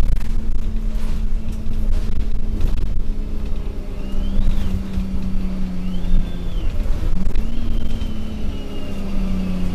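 Alexander Dennis Enviro200 MMC bus, with a Cummins six-cylinder engine and Voith four-speed automatic gearbox, under way as heard inside the saloon. A steady low drone carries a held engine tone that drops and picks up again with the gearbox, and thin high whines rise and fall three times.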